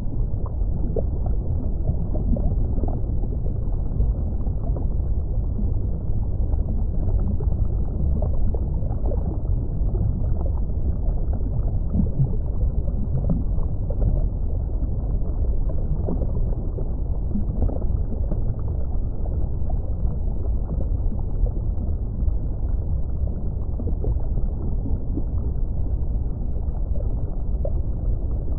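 Steady, muffled underwater rumble of water moving around a submerged camera, with faint small crackles and gurgles scattered through it.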